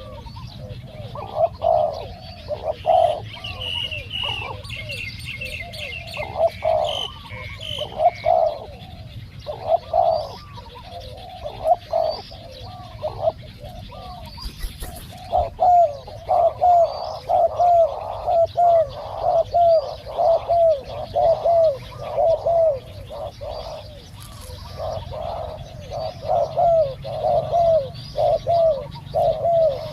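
Spotted doves cooing, phrase after phrase of short curved coos. In the second half the coos come in a fast, even run of about two a second. Faint high chirping of small birds is heard early on.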